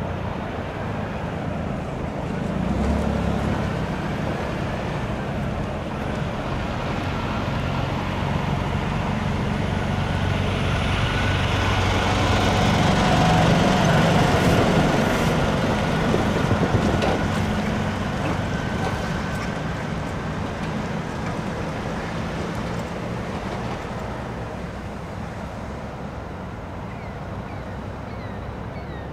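Freight train of refrigerated boxcars rolling on the rails, with a steady low engine drone under the rumble of the wheels. It grows louder around the middle, with a faint thin squeal at times, then fades slowly toward the end.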